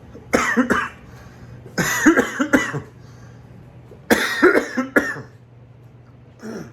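An adult man coughing in three fits of several hard coughs each, with a shorter, fainter cough near the end. It is the cough he woke up with, alongside a fever and chest tightness, a symptom of a suspected covid-19 infection.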